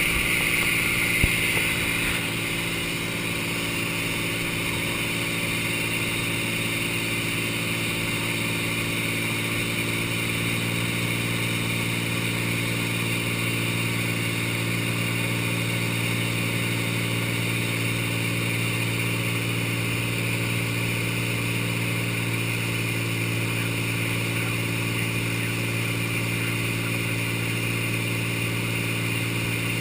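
Cessna light plane's piston engine and propeller droning steadily in flight, a constant low hum with evenly spaced overtones that does not change in pitch. There is a brighter hiss for the first two seconds and a single click about a second in.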